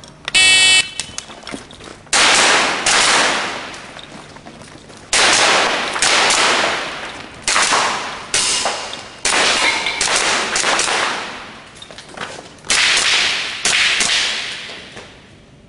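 An electronic shot timer beeps once, briefly, for the start, then an airsoft pistol fires a string of about a dozen shots in quick pairs and small groups, each sharp crack dying away over about a second.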